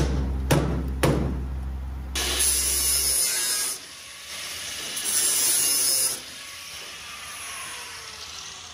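A rusty sheet-metal car body section scraping and rasping twice as it is dragged out of the body shell. Music with a steady beat plays over the first couple of seconds.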